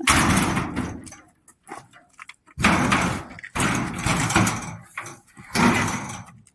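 Sheet-metal garage door being forced and bent by hand: four loud bouts of scraping, rattling metal, the first starting abruptly.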